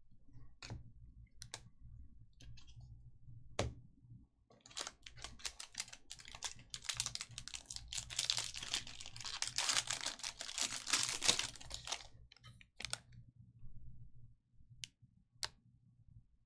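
Foil trading-card pack wrappers being torn open and the cards handled: a few sharp clicks and rustles, then several seconds of dense crinkling and tearing, then a few more clicks near the end.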